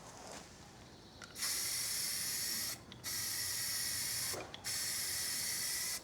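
Aerosol spray paint can spraying paint onto a table-saw rip fence part in three bursts of hiss, each about a second and a half long with brief pauses between.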